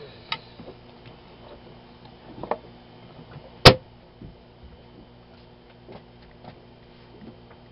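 A few quiet clicks and one sharp, loud click a little past halfway, over a steady low hum.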